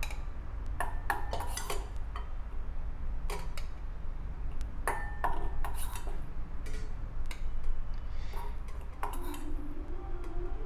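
A metal spoon clinking and scraping against a stainless steel bowl and the steel puttu maker tube as rice flour and coconut are scooped and packed in: a dozen or so irregular sharp metallic clinks, some ringing briefly.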